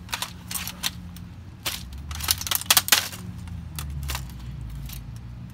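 Hammer blows on a gutted Toshiba laptop's plastic base, a quick run of sharp cracks and clinks that is densest in the first three seconds and thins out after.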